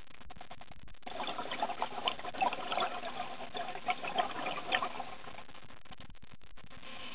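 Underwater bubbling and crackling of exhaled air streaming up past the camera. It starts about a second in and dies away after about four seconds.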